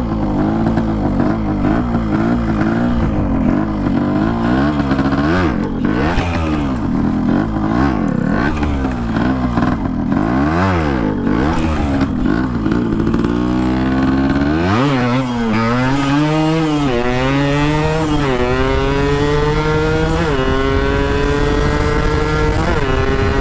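Yamaha RX-King 135 cc two-stroke single on its original exhaust: the throttle is blipped up and down repeatedly for about the first half. Then the engine climbs in pitch several times, each climb followed by a drop, as the bike accelerates through the gears.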